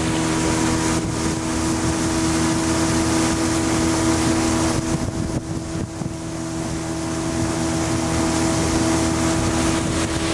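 Outboard motor of a small open boat running at a steady cruising speed, its pitch holding level, over a rush of wind and churning water from the wake.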